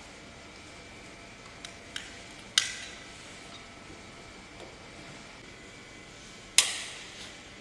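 Two sharp plastic clacks about four seconds apart, with a few lighter clicks just before the first, as power plugs are pushed into the sockets on the back panel of a small freeze dryer.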